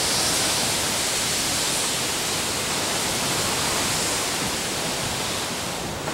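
Hurricane wind and rain as a loud, steady rushing hiss, easing a little near the end.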